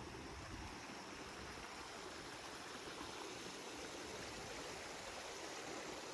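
Small creek running steadily: a faint, even rush of water.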